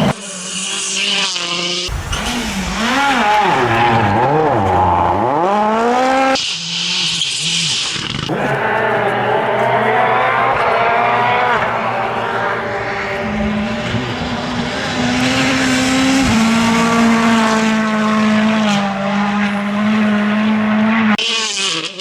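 2017 World Rally Cars' turbocharged 1.6-litre four-cylinder engines revving hard, rising and dropping sharply in pitch through gear changes, in several short clips that cut abruptly from one to the next. A long stretch in the middle holds a steadier engine note that steps up in pitch.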